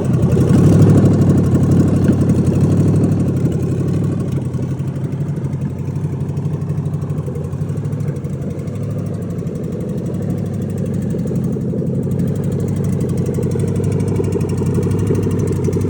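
Rebuilt 2005 LSX V8 idling, running a little higher for the first couple of seconds and then settling into a steady idle, with a ticking whose cause the owner is asking about.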